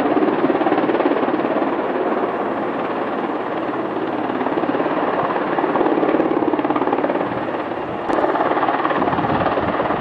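PZL W-3 Sokół rescue helicopter hovering close, its rotor chopping fast over the steady run of its turbines. About eight seconds in there is a sharp click, and the sound turns deeper and more rumbling.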